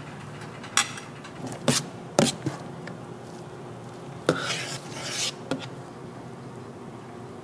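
A few short sharp clatters of metal kitchen utensils against cookware, then a longer scraping clatter near the middle, over the steady hum of kitchen equipment.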